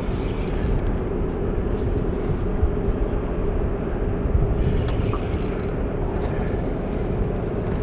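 A steady low motor hum with a constant drone and wind buffeting the microphone.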